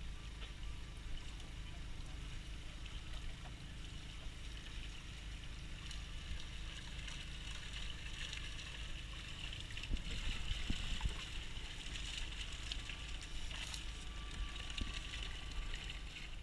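Water sloshing and splashing in a fishing net as it is hauled up beside a boat, over a steady low hum. The splashing grows from about six seconds in, with a few louder knocks around ten seconds.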